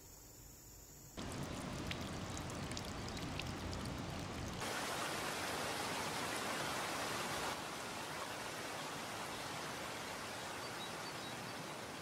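Faint insect chirring, then about a second in a stream rushing over rocks starts abruptly, a steady hiss of water. It grows fuller a few seconds later and eases slightly past the middle.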